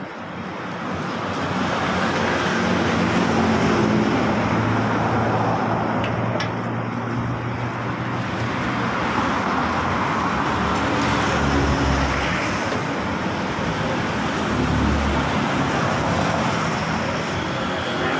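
Road traffic passing close by: vehicle engines swell and fade over several seconds, twice coming up strongly near the middle. A couple of light clinks about six seconds in.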